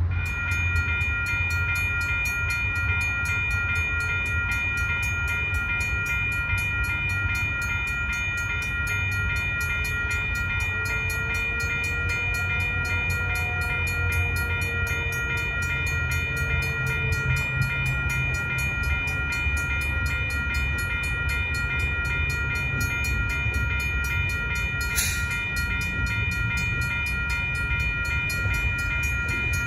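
Western-Cullen-Hayes electronic crossing bell starting up as the grade-crossing warning activates, then ringing steadily and rapidly. A steady low rumble runs underneath.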